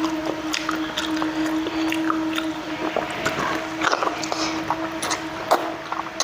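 Close-miked mukbang chewing of rice: wet, squishy mouth sounds with many small irregular clicks, over a steady hum.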